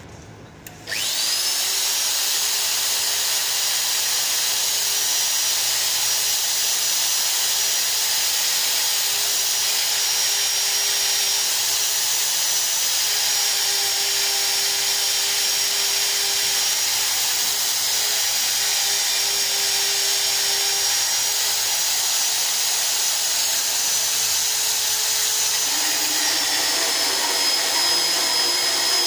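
Electric clamp-on pipe hole-cutting drill starts up about a second in, its whine rising to a steady high pitch, and runs continuously as the hole saw is fed into the steel pipe wall. Near the end the sound turns rougher and lower.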